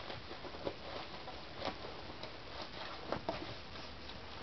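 Hands rummaging through loose packing fill in a cardboard box: scattered soft rustles and small crinkly clicks, a few louder ones about a second and a half in and around three seconds in.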